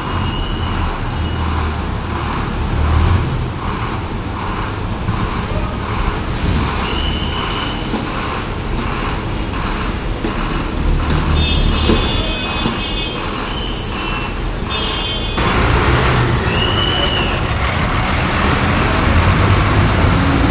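City buses running and manoeuvring, their diesel engines rumbling over general traffic noise, with a few brief high-pitched squeals or toots scattered through. About three-quarters of the way in the sound becomes louder and noisier.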